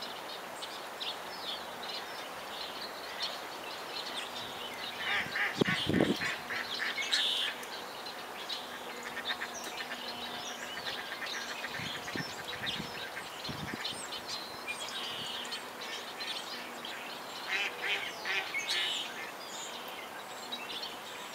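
A flock of ducks on flooded marsh water calling: a steady chorus of many short, overlapping calls and chatter, busiest twice, with a few low thumps in between.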